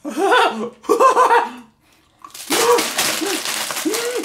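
A man laughing in quick repeated bursts. After a short pause, a plastic candy bag crinkles and rustles while he makes short vocal sounds.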